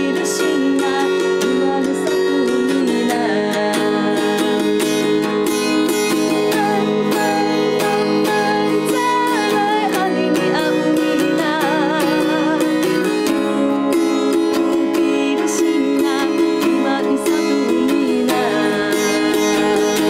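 Music played on a plucked acoustic string instrument, a steady run of picked notes carrying a melody, with a wavering held melody line partway through.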